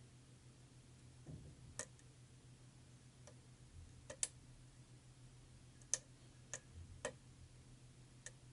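Small, irregular clicks of pin-tumbler lock pins setting and dropping under a pick and tension wrench, about eight in all, a few close together, over a faint steady hum; the speaker calls it a lot of snap, crackle, pop.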